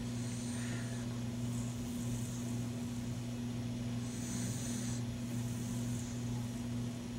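Beagle snoring in its sleep: a hissing, whistly breath about once every four seconds, over a steady low hum.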